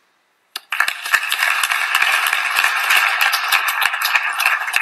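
Audience applauding, starting suddenly just under a second in after a moment of silence.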